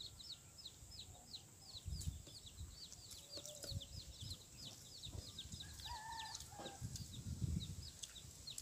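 Chicks peeping: a steady run of short, high chirps, each falling in pitch, about three to four a second, with a few lower calls and some soft thumps.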